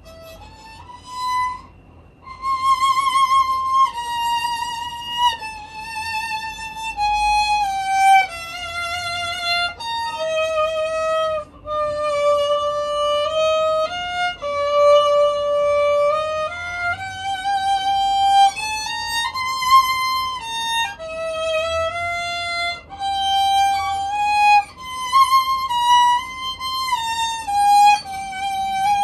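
Solo viola bowed: a slow single-line melody of held notes with vibrato, coming in about two seconds in.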